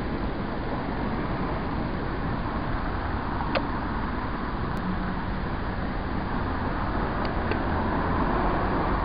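Steady background hum of road traffic, with a few short high ticks about three and a half seconds in and twice near the end.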